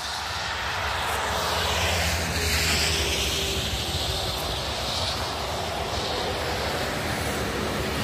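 Highway traffic passing on a wet, slushy road: steady tyre noise and engine hum as a van goes by, then a semi-truck's diesel engine and tyres grow louder as it approaches.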